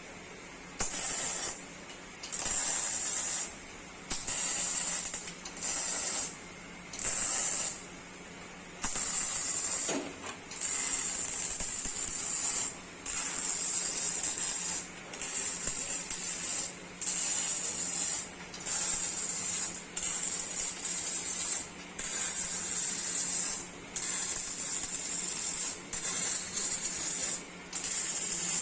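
MIG/MAG welding arc on thin sheet metal, crackling and hissing in many short runs of one to two seconds each, with brief stops between them, as in stitch or tack welding.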